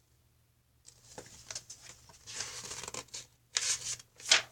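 Paper rustling as the pages of a picture book are handled and turned, starting about a second in, with a couple of sharper swishes near the end.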